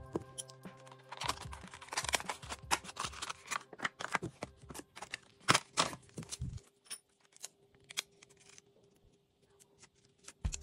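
Crackling and crinkling of thin plastic film being handled and peeled off a new replacement phone battery. Dense, rapid crackles last several seconds, then give way to scattered light ticks.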